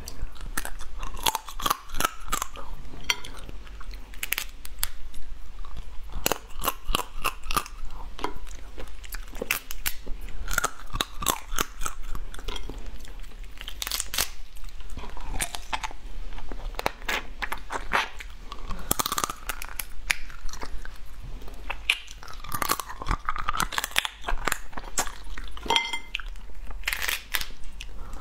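Close-miked eating of crab: shells cracking and crunching, with chewing and sucking at the meat. The sharp crunches come over and over throughout.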